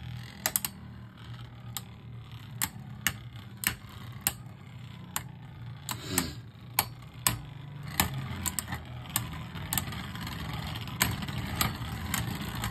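Two Beyblade Burst spinning tops, Orpheus and Unicrest, whirring steadily on a plastic stadium floor, with sharp clacks about twice a second as they knock against each other.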